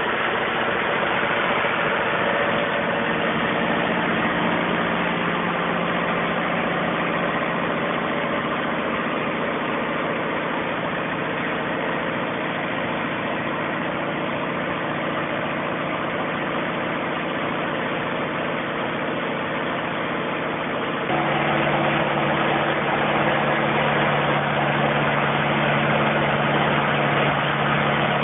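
Deutz BF4L 913 air-cooled four-cylinder turbo diesel engine of a Kershaw 75x hi-rail brush cutter running steadily. About three-quarters of the way through it suddenly grows louder and changes pitch.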